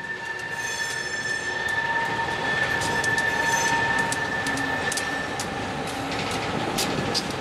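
CSX freight train rolling past, its wheels squealing on the rails in a steady high tone. Sharp clicks and clanks of wheels over the track come more often in the second half.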